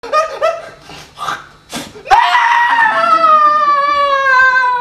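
A performer's voice: a few short gasping cries, then about two seconds in a long, high wailing scream held for nearly three seconds that slowly slides lower in pitch.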